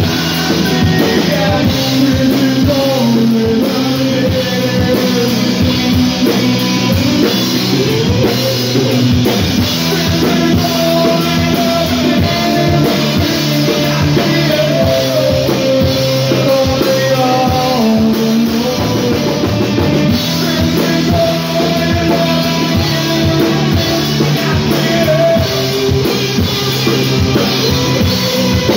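Live rock band playing a song: a male lead singer over a drum kit and electric bass, loud and steady throughout.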